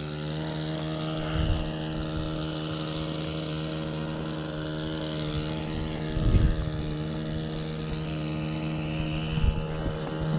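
Motorboat engine running steadily at an even pitch, with a few low thumps of wind buffeting the microphone.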